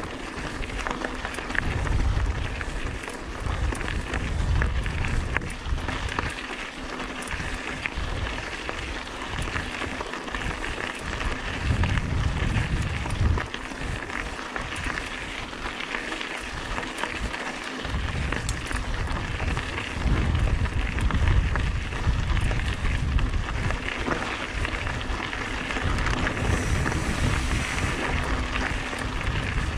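Singlespeed mountain bike descending a dirt trail: tyres grinding over gravel and rock with a steady stream of small rattles and clicks from the bike. Gusts of wind buffet the microphone in surges every few seconds.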